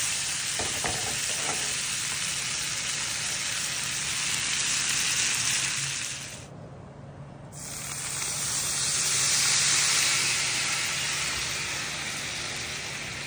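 Prime sirloin steaks searing in butter in a stainless skillet, with a steady sizzle. About six seconds in the sizzle drops away for a moment, then swells louder as red wine is poured into the hot pan to deglaze it, before settling into a steady sizzle again.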